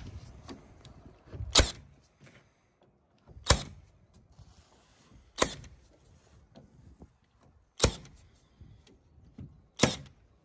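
Milwaukee M18 Fuel 2749 cordless narrow crown stapler driving staples into plywood: five sharp shots about two seconds apart.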